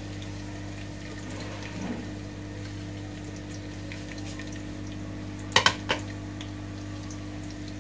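Onions frying in hot oil in a pan with a faint, steady sizzle over a low hum. About five and a half seconds in, two or three sharp knocks of a utensil against the pan.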